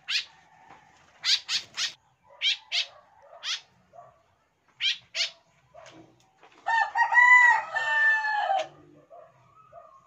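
Swallows giving short, sharp, downward-sweeping chirps, singly or in quick runs of two or three. About seven seconds in, a rooster crows once, loudly, for about two seconds.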